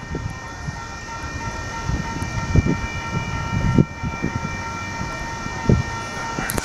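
Intermodal stack train's loaded cars rolling past: a steady rumble with heavier clanks about two and a half, four and nearly six seconds in. A steady high whine holds over it throughout.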